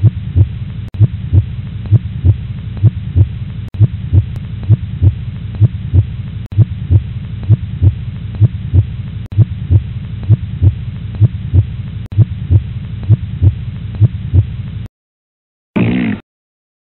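A loud, low hum with a heavy throbbing pulse a little over two times a second, like a heartbeat. It cuts off suddenly near the end, and a brief separate sound follows about a second later.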